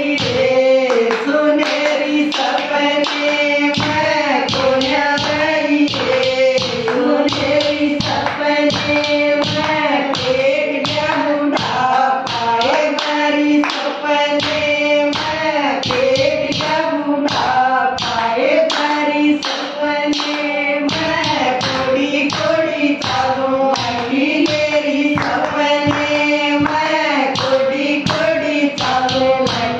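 Group of women singing a Haryanvi devotional bhajan together, with steady rhythmic hand clapping keeping the beat.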